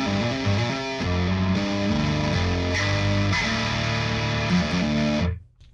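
Heavily distorted electric guitar riff through a This Heavy Earth Black Mass preamp pedal in its high gain voice, with the internal max-gain trim pot turned all the way up. The riff stops suddenly near the end, leaving a faint low hum.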